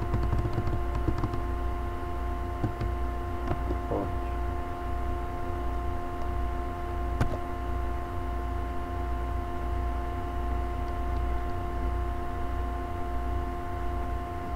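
Steady electrical hum with a few steady whining tones from the recording setup, with a handful of faint computer keyboard clicks as text is edited.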